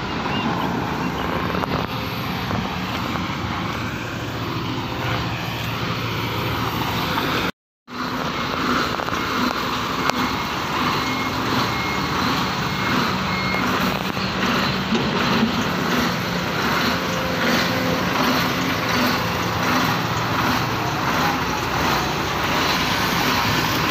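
Kobelco SK220 excavator's diesel engine running steadily as the machine works, with a dense, even machinery noise. The sound cuts out completely for a moment about eight seconds in, and a faint intermittent beeping alarm sounds briefly around the middle.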